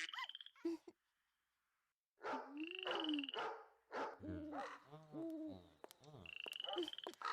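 Pet-store animal sounds: frog croaking calls that bend in pitch, with a few high whistling calls about a second long. It starts after a brief silence near the start.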